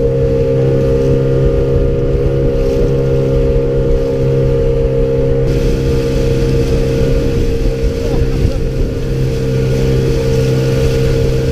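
Outboard motor running at a steady speed. About five and a half seconds in, a rushing noise of wind and water joins it.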